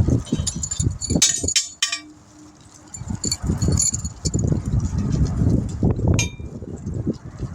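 Metal tools and parts clinking and ringing during tire-machine work, over many dull knocks from handling the tire and rim. A short ringing clink comes just after six seconds.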